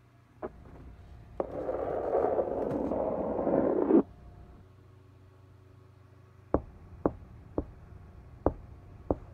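Faint noises from inside an attic ceiling and wall, caught on a phone and turned up loud: a click, then rough scratching and scraping for about two and a half seconds that cuts off suddenly, then five sharp knocks spaced about half a second to a second apart, over a steady hum. The household likens these night-time attic noises to animals, though none have been found up there.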